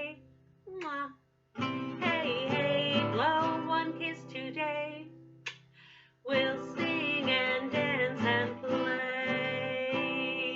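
A woman singing a children's song with a strummed acoustic guitar, with two short breaks between phrases.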